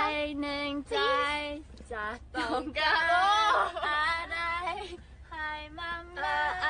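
Young women singing in high voices, with long held notes.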